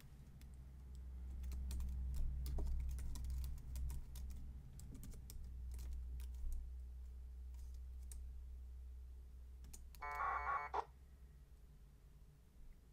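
Computer keyboard typing a short command, a quick run of key clicks over a steady low hum. About ten seconds in comes a brief, under-a-second burst of warbling packet-radio data tones from the radio as the connect request goes out and the link is made.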